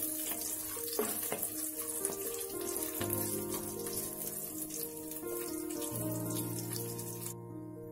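Almonds, coconut slices, raisins and whole spices sizzling and crackling in hot ghee in a pressure cooker while a wooden spatula stirs them; the sizzle cuts off near the end. Soft background music with held notes plays underneath.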